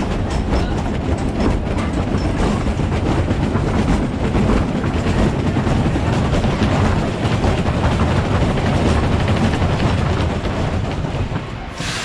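Wooden roller coaster train rumbling and clattering along its track, heard from on board, with rapid clicks from the wheels over the rail joints; it eases off near the end.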